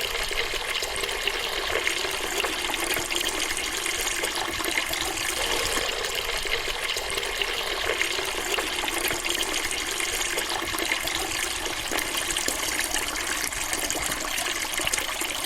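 Water running steadily from a faucet: an even, unbroken splashing rush with little low rumble.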